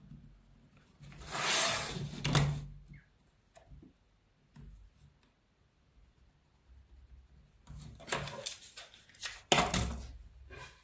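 Hand-work noises: rubbing and scraping with a few sharp knocks and clicks, in two spells about a second in and from about eight seconds on; no motor is running.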